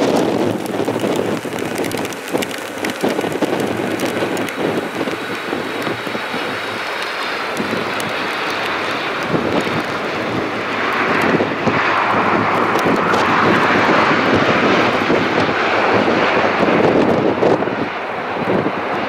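Aeroflot Boeing 767 twin-jet landing on a wet runway: steady jet engine noise, growing louder about eleven seconds in as the airliner touches down and rolls out with its spoilers up.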